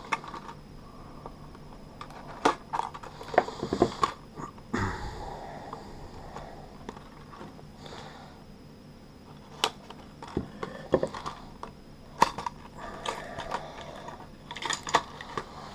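A fishing lure's stiff plastic blister pack, sealed with tape, being cut and pried open with a folding knife and handled: irregular crackles, clicks and scrapes of plastic, in small clusters.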